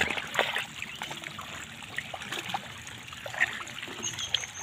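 Shallow muddy water and wet mud splashing and squelching as hands grope through the mud for fish, a run of short irregular splats and trickles.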